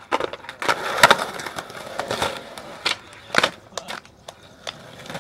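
Skateboard wheels rolling on rough concrete, with a string of sharp wooden clacks and knocks as the board pops, scrapes and lands.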